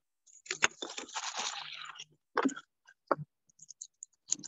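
Handling noise from a hand-pump water filter being unpacked and put together: plastic crinkling and rustling with a sharp click near the start, a couple of knocks, and light ticking of plastic parts toward the end.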